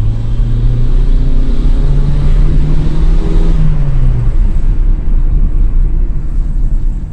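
Fiat Palio 1.0's four-cylinder engine accelerating. Its pitch climbs for a couple of seconds and drops about four seconds in as the throttle is lifted. Over the climb a rising hiss builds, which a sink drain trap fitted to the car turns into a sound like a turbo spooling up.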